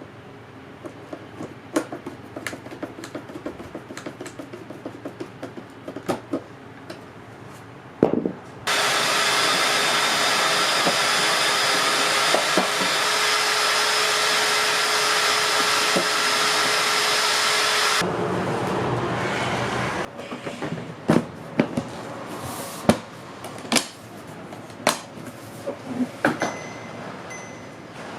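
Scattered small clicks and handling sounds, then a small electric motor runs steadily at one even pitch for about nine seconds and stops abruptly, followed by more clicks.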